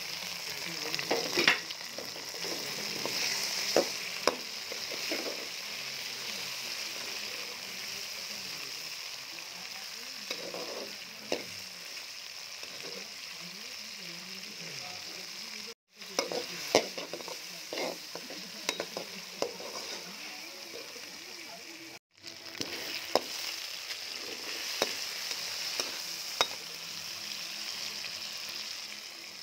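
Chicken pieces and tomatoes sizzling steadily in hot oil in a metal pan, stirred with a perforated steel skimmer that clinks and scrapes against the pan now and then. The sizzle drops out for an instant twice.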